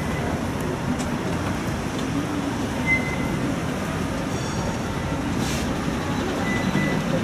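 Steady road traffic noise from cars, vans and lorries driving past on a busy multi-lane road.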